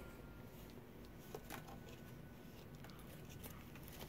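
Very quiet room with a few faint, scattered clicks and rustles: a Pomeranian puppy scrambling about in a small wicker basket on a quilt.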